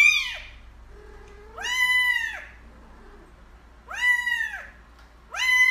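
Grey kitten meowing repeatedly: four high meows about two seconds apart, each rising and then falling in pitch.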